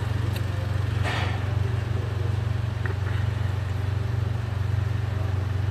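Steady low mechanical hum with a fast, even pulse, and a brief hiss about a second in.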